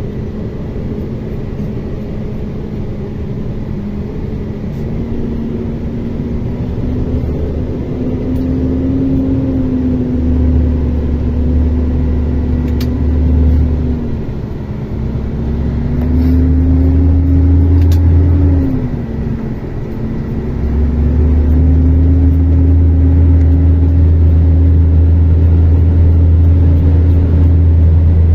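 Mercedes-Benz Axor 2644 truck's inline-six diesel engine pulling hard in low range over rough ground. Its pitch climbs, sags about halfway through, climbs again, drops briefly about two-thirds through, then rises and holds.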